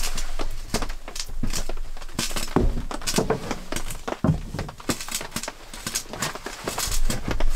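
Irregular wooden knocks, thuds and scrapes as firewood logs are handled, mixed with footsteps on a wooden plank floor.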